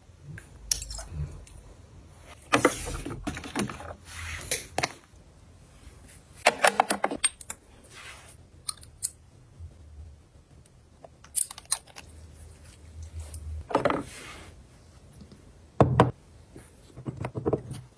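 Cosmetic bottles and dropper caps being handled: an uneven series of short clicks and clinks as caps are unscrewed, pulled out and set down, with the loudest clatter about a third of the way in and again near the end.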